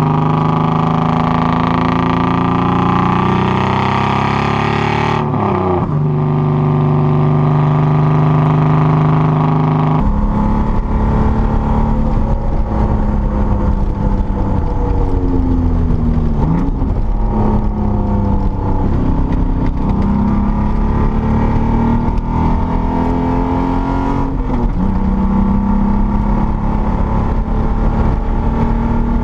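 Datsun 240Z straight-six engine pulling through the gears, its note climbing and then dropping at several gear changes. The sound changes abruptly about ten seconds in, as if cut to another recording.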